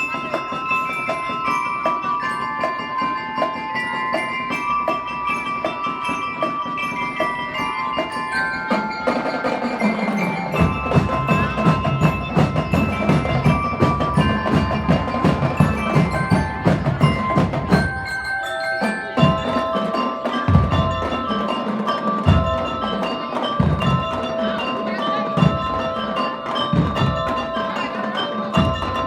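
Drum and lyre band playing: bell lyres ring out a melody over marching snare and bass drums. The low drum beats grow heavier about a third of the way through.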